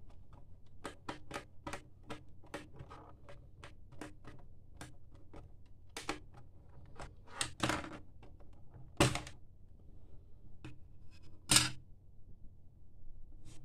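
Irregular small clicks and light knocks of a screwdriver and plastic laptop parts being handled, with three louder knocks in the second half, as the laptop's hard drive is unscrewed and taken out.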